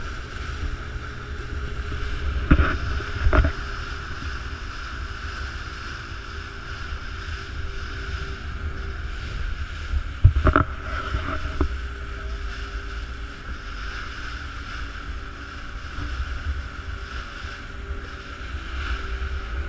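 A boat under way: a steady engine drone and low rumble with wind on the microphone, broken by a few sharp thumps about three seconds in and again about ten seconds in.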